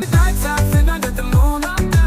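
Background music: an upbeat track with a steady beat of deep, falling bass drum hits under a melodic line.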